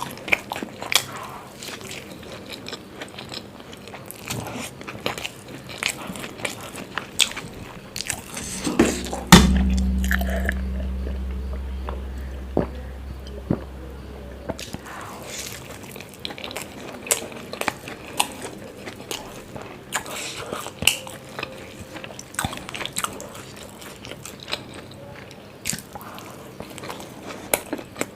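Close-miked eating: biting into and chewing paratha, with many small wet clicks and crunches. About nine seconds in comes one loud thump, the loudest sound here, followed by a low hum that fades over about five seconds and then stops suddenly.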